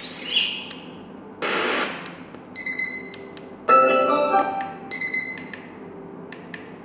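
BUFFBEE BK11B alarm clock radio previewing its wake-up sounds one after another as the selection is stepped through: a short burst of hiss, steady beeping tones, and a brief burst of melody, each cut short by the next, with a few short clicks.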